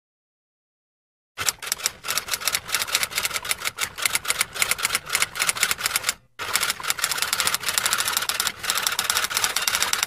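Manual typewriter typing sound effect: rapid, uneven clatter of key strikes, starting about a second and a half in and pausing briefly about six seconds in before going on.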